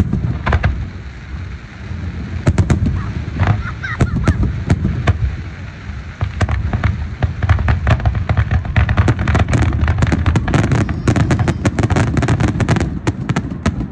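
Fireworks going off in a rapid string of sharp bangs and crackles over a low rumble, growing denser in the second half.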